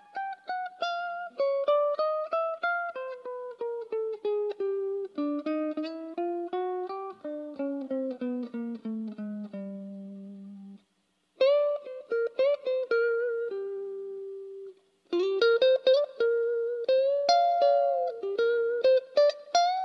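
Tokai Super Edition SD-65s electric guitar played clean and unaccompanied: picked single-note phrases, mostly falling runs, with some notes bending in pitch. A held low note wavers and stops about 11 seconds in, and after a short pause the playing picks up again with another brief break near 15 seconds.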